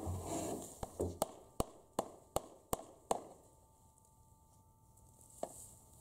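A run of about eight sharp knocks in an even rhythm, roughly three a second, then one more knock near the end.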